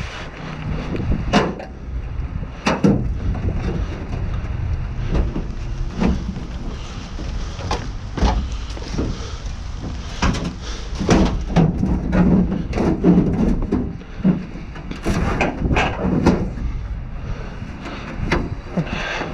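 Debris and scrap being shifted around in a dumpster: irregular knocks and clatters, busiest in the second half, over a low rumble of wind on the microphone.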